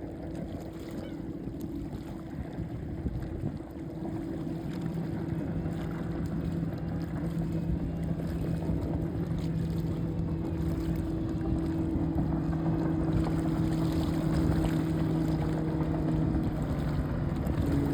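Motorboat engine running at a steady speed with a constant hum, under a wash of wind and water noise, growing gradually louder.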